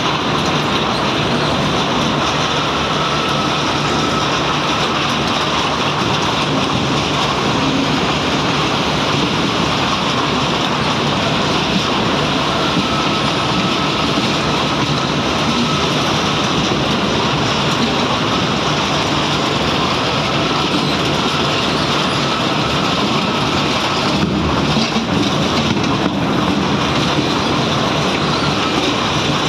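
Excavator's diesel engine running steadily, a loud constant rumble with a rushing noise over it.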